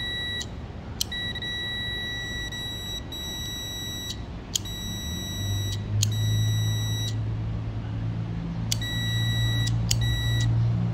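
Digital multimeter's continuity beeper sounding a steady high tone in several stretches of about one to three seconds, breaking off and restarting with small clicks. The beep across the energised contactor of a flood-damaged hybrid high-voltage battery shows its contacts are closing: the relay still works. A low hum joins about halfway through.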